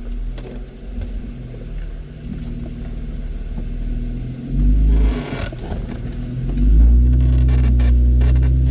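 Off-road vehicle's engine working under load as it climbs a steep, nearly straight-up obstacle. A brief rushing noise comes about five seconds in, then the engine revs up hard and holds it near the end.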